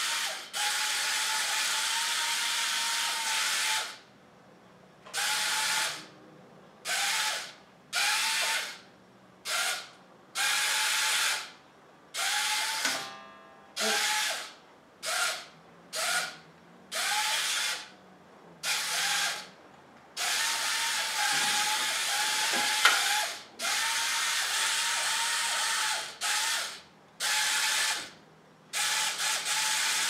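The small electric motors of a toy remote-control wall-climber tank whir in many short bursts as it is driven start-stop. Each burst carries a whine that rises as the motors spin up and drops as they stop.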